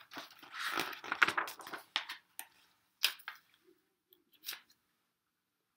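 Paper rustling and crinkling as the pages of a hardcover picture book are handled, followed by a few short soft taps and clicks.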